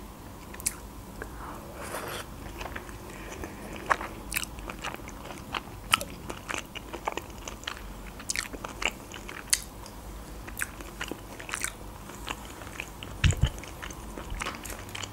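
Close-up eating sounds of a person chewing a baked mussel: small irregular mouth clicks and bites, with one low thump near the end.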